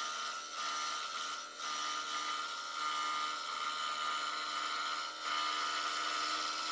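Scroll saw running steadily, its reciprocating blade cutting through a wooden panel.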